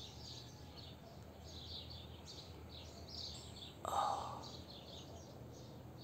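Small birds chirping repeatedly over a steady low background hum, with one short scuffing noise about four seconds in.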